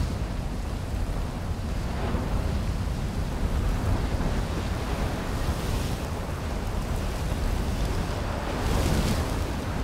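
Wind buffeting a microphone: a steady low rumble that surges a few times.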